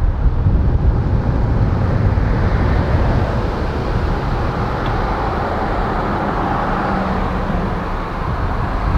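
Steady road noise of a car driving: a low rumble with a hiss of tyres and wind.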